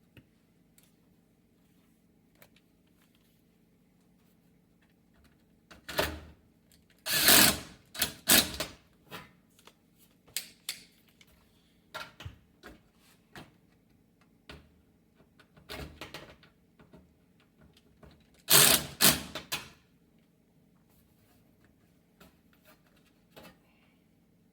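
Hard parts being handled during an appliance repair: scattered clicks with two louder bursts of clattering knocks, about six seconds in and again near nineteen seconds.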